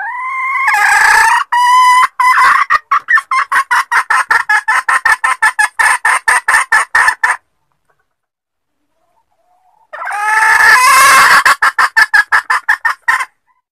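Junglefowl hen calling in two bouts, each a rising squawk that breaks into a fast run of clucks, about seven a second, with a pause of a couple of seconds between them. It is a hen's call asking to mate, used as a lure for junglefowl.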